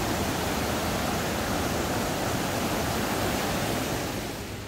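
River water rushing over rocks, a steady even noise that drops away just before the end.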